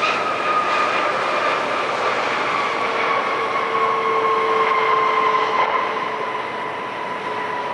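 Cathay Pacific Airbus A350-1000's Rolls-Royce Trent XWB jet engines roaring during the landing rollout, with a whine that slowly falls in pitch.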